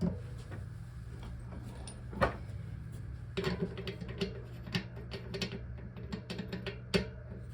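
Metal clicks and taps of a BMX freewheel being threaded onto the rear hub and snugged up with a freewheel tool: one sharp click, then a run of irregular clicks, over a steady low hum.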